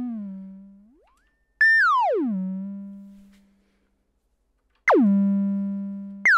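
Moog DFAM analog percussion synthesizer's oscillator playing single tones that start high, slide down to a low steady pitch and fade. The first, about a second and a half in, is swept down by hand on the VCO frequency knob, imitating what the pitch envelope does. Near the end two more hits fall in pitch on their own: the first almost instantly, the second more slowly.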